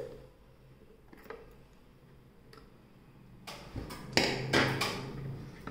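Faint ticks of a small screwdriver loosening the battery-cover screw on a plastic toy ATM coin bank, then a few sharp plastic clicks and knocks about three and a half seconds in as the battery cover is lifted off.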